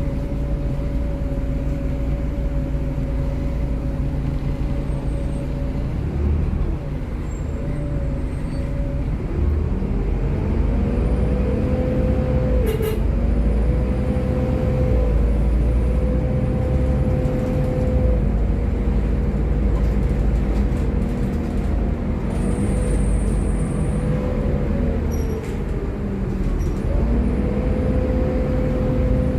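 Volvo B7TL double-decker bus's six-cylinder diesel engine heard on board while the bus drives, the engine note rising and falling through the gear changes, with a steady whine running underneath.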